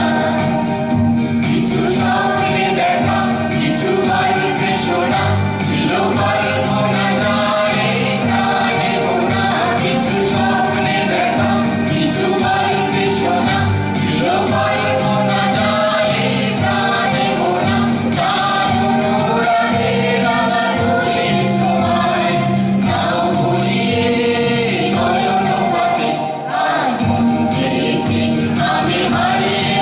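A song performance: singing with instrumental accompaniment, continuing without a break.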